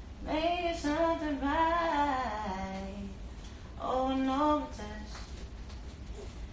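A woman singing softly without accompaniment: one long phrase with bending, held notes, then a short phrase about four seconds in.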